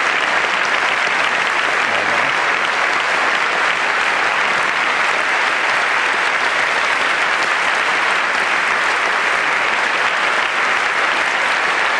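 A large theatre audience applauding steadily, a dense continuous clapping.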